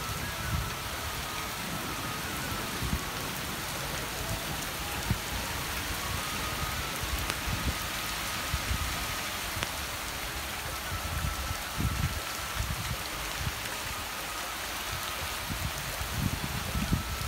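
Heavy downpour: a steady hiss of rain falling on puddled ground and tree foliage, with irregular low rumbles underneath.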